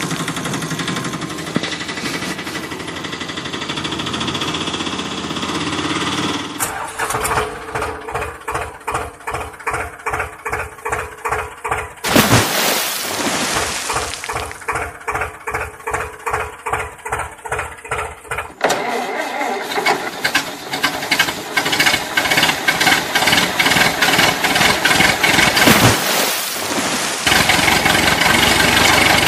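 Diesel tractor engine chugging in slow, even beats of about three to four a second, broken twice by a short, loud burst, then running faster and busier near the end.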